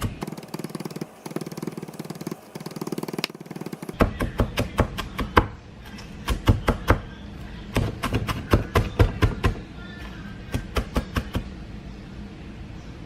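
Background music with a steady beat; the bass drops out for the first few seconds, then comes back in. Near the end the music gives way to a steady low noise.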